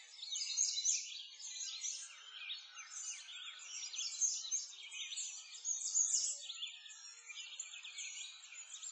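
Many small birds chirping and singing together, a dense chorus of short high calls.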